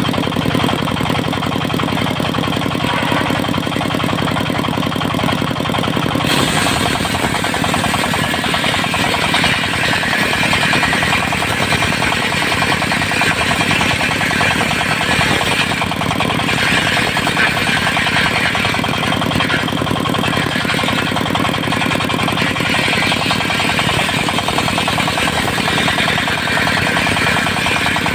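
Engine-driven circular sawmill running steadily. About six seconds in, the blade starts cutting teak timber, and a loud sawing hiss joins the engine drone, easing off briefly twice in the middle.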